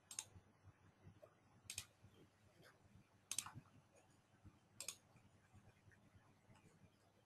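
Near silence with four faint computer mouse clicks, about a second and a half apart.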